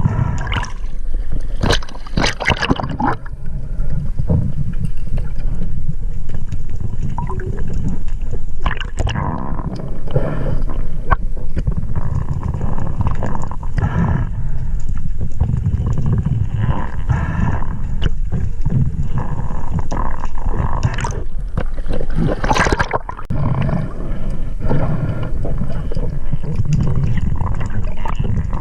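Water noise on an underwater camera: a steady low rumble, broken by irregular bursts of gurgling and bubbling, the strongest about two seconds in, around nine seconds and near twenty-two seconds.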